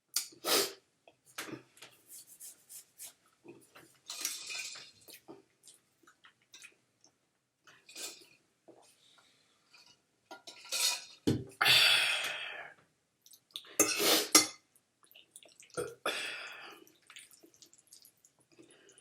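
Close-up eating sounds from a spaghetti meal: a fork clinking and scraping against the dish in scattered clicks, with a few longer, louder noisy bursts of eating noise past the middle.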